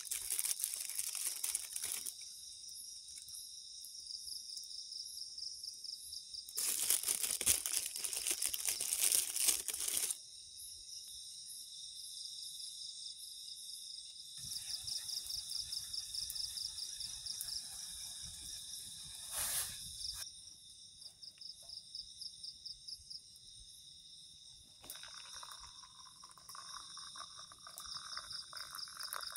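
Night insects chirr steadily with a pulsing trill. Twice early on there are bursts of crinkling and crunching from dry leaf litter. From a few seconds before the end, liquid is poured from a metal pot into a plastic cup.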